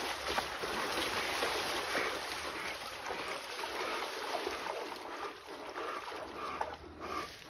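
Scuffling and crunching in dry leaves with many scattered clicks, from two whitetail bucks fighting.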